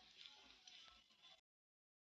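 A brief, faint snippet of music that cuts off suddenly about one and a half seconds in, leaving dead silence.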